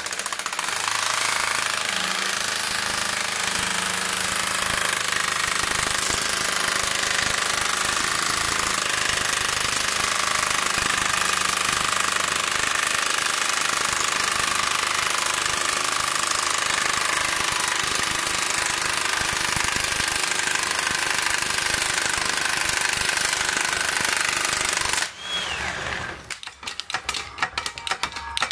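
Impact wrench hammering steadily as it drives a bearing puller's spindle, pulling the main bearing off a Yamaha XT600 single-cylinder crankshaft. It stops abruptly about 25 seconds in, and a few irregular clicks and knocks follow.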